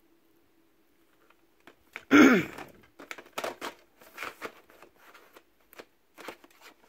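Plastic DVD cases clicking and rustling as a case is handled and pushed back into a tightly packed shelf: a run of short, light clicks and scrapes. A louder sound falling in pitch comes about two seconds in.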